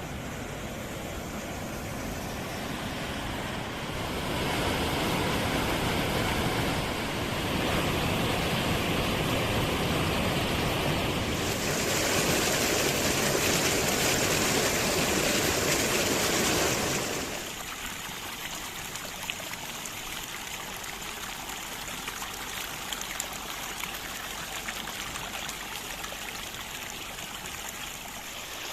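Rushing water of a fast mountain stream, a steady wash of noise. It grows louder and brighter through the first half and drops back to a softer level about two-thirds of the way in.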